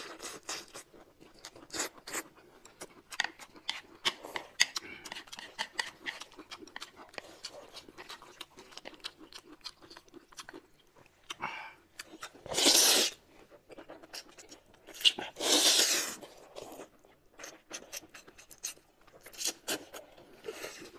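Close-up eating sounds: chewing with many small mouth clicks and smacks, broken twice, about twelve and fifteen seconds in, by a loud slurp of corn noodles lasting about a second.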